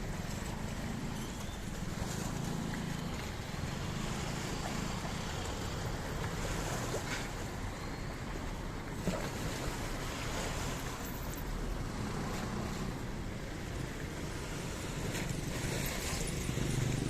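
Steady wind and sea noise at sea, over a low rumbling hum.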